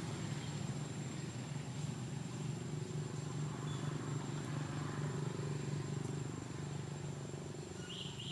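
Steady low mechanical hum, with a short high chirp near the end.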